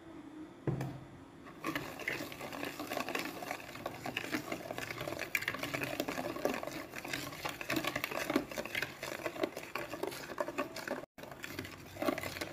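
Wire balloon whisk beating eggs and oil in a glass bowl: a fast, continuous clatter of the wires against the glass with wet sloshing, starting about two seconds in, with a short break near the end.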